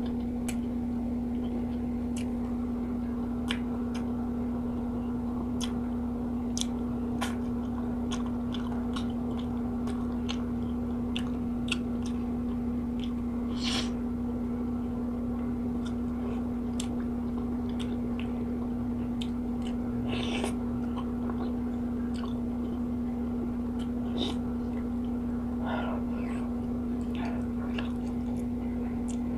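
Close-up chewing of rice and fried fish eaten by hand, with scattered wet mouth clicks and a few louder smacks, over a steady low hum.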